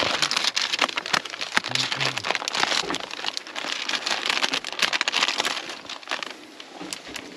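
Thin plastic film and a clear plastic tray from a pack of sliced ham crinkling and crackling as they are handled by hand and the slices pulled out. The crackling is busiest for the first five seconds or so, then thins out.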